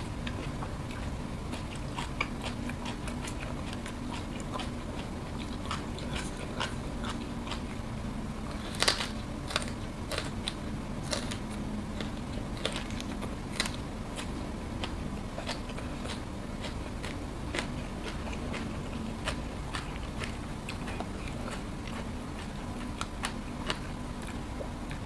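Close-miked chewing and crunching of raw vegetables, a run of short crisp bites and mouth clicks with the loudest crunch about nine seconds in, over a faint steady hum.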